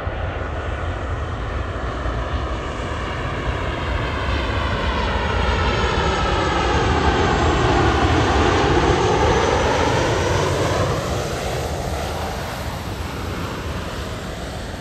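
Airliner on approach to land flying past, its engine noise swelling to a peak about eight or nine seconds in and then fading, with a sweeping hiss whose pitch falls as it nears and rises as it moves away.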